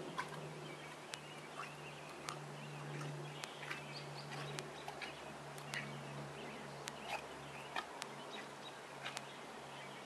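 Faint outdoor ambience: irregular short clicks and brief chirps over a steady low hum, which fades about eight seconds in.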